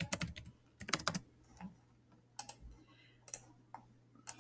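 Typing on a computer keyboard: quick irregular runs of keystrokes in the first second or so, then a few separate clicks spaced out toward the end.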